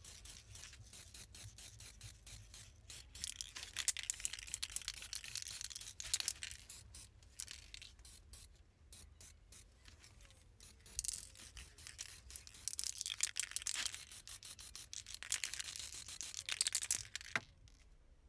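Abrasive rubbing on a metal part, in strokes and bursts a second or two long, with small sharp clicks between them. It stops shortly before the end.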